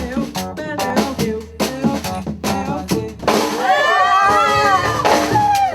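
Band music: drum-kit strokes over a steady bass line, then a voice comes in singing long held notes a little over halfway through.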